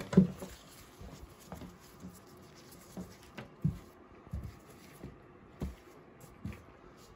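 Handling noise: scattered soft bumps and faint rustles, about ten in seven seconds and irregularly spaced, from a gloved hand on a mesh basketball jersey and the phone being moved over it.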